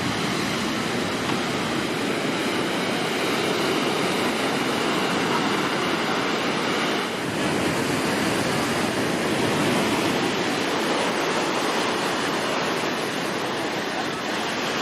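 Rough sea in a storm: heavy surf breaking and washing in a continuous, steady rush of water.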